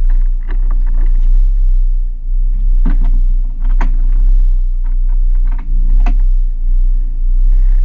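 Low rumble of wind buffeting the microphone on a boat's open deck, over the steady running of the boat's engine, with a few sharp knocks in the middle.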